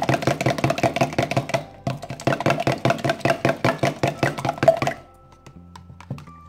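A fork whisking beaten egg and milk in a plastic measuring cup: a rapid, even run of clicks as the fork strikes the cup, stopping about five seconds in.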